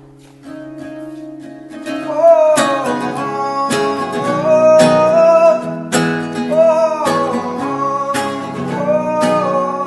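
Background music: guitar-led chords, with a beat coming in about two seconds in and a sung or lead melody over it.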